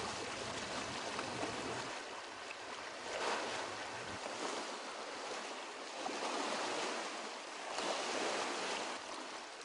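Small lake waves lapping and splashing against a rocky shore, the wash swelling and easing every two to three seconds.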